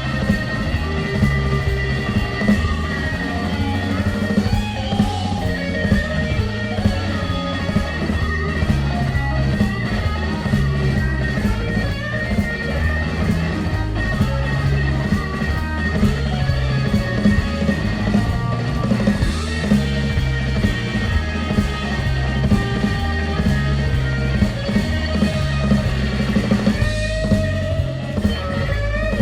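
Live blues band playing: guitar over bass and drum kit with a steady beat.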